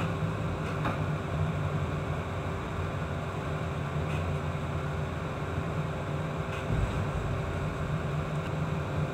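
Steady low machinery hum aboard a ship, with several steady tones over a constant rush of noise, and a few faint ticks a few seconds apart.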